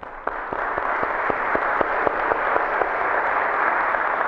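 Audience applauding in a hall. For the first three seconds, one person's claps close to the microphone stand out at about four a second.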